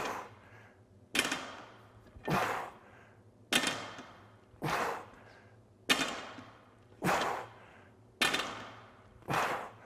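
A set of explosive barbell dead rows: sharp, hard breaths and the loaded bar moving on each pull and lowering, about one sound every 1.2 seconds in a steady rhythm, each trailing off quickly.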